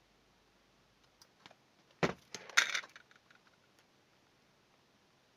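A few light ticks, then a short clatter of small hard objects being handled on the workbench about two seconds in, lasting about a second.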